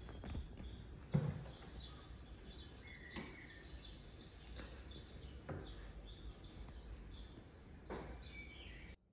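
Faint birds chirping from a cat-TV nature video playing on a television, with a few soft knocks scattered through.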